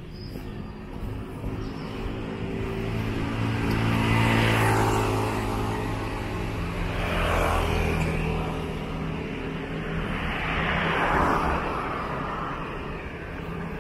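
Road traffic: three vehicles pass close by, one after another, each rising in level and then falling away, over a steady engine hum.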